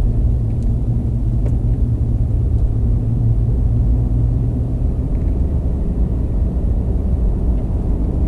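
Steady low drone of a vehicle driving: engine and road noise, even throughout.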